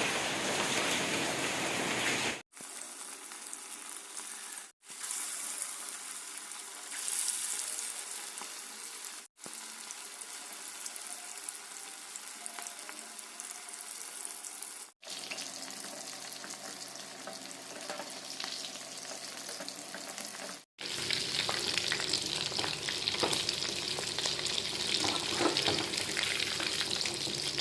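Chicken popcorn pieces frying in hot oil, a steady sizzle, in several short clips cut together with brief breaks between them. The sizzle is louder and more crackly near the end.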